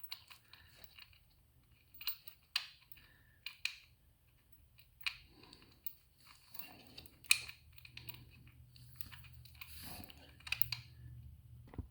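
Scattered small clicks, taps and scrapes of hands working a motorcycle's oil drain plug, fitted with a new crush washer, back into the oil pan, with one sharper click about seven seconds in. A faint steady low hum underneath.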